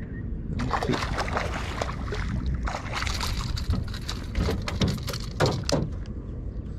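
Irregular splashing of water, starting about half a second in and dying away near the end, over a steady low rumble.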